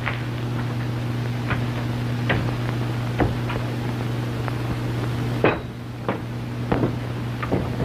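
Steady low hum of an early sound-film soundtrack, with irregular sharp clicks and knocks about every half second to second.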